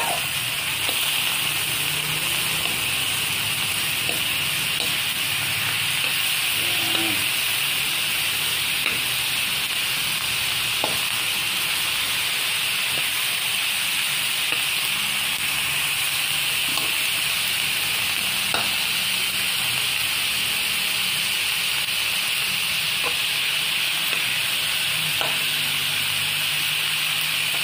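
Chicken pieces frying in oil in a wok, a steady sizzle while the meat browns with garlic and onion. A few light knocks from the stirring utensil against the pan come through now and then.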